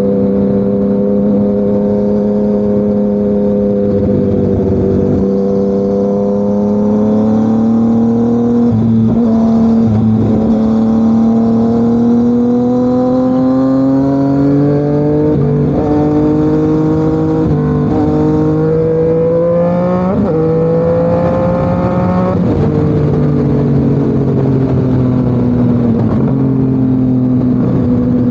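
Yamaha MT-09's three-cylinder crossplane engine through an SC Project CRT exhaust, riding under steady throttle. The engine note climbs slowly, breaks briefly several times, then drops about two-thirds of the way through and holds steady.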